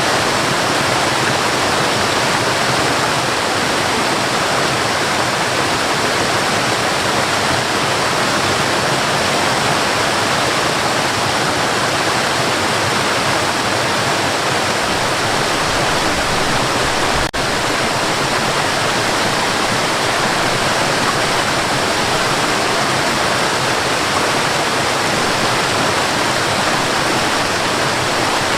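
Forest waterfall: water rushing and splashing in a steady, even roar, with a momentary dropout a little past halfway.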